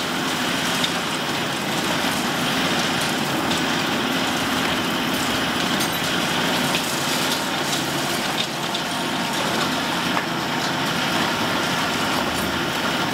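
Large hydraulic demolition excavator's diesel engine running steadily under load while its demolition jaw works a building, with scattered small cracks and knocks of breaking material and rubble.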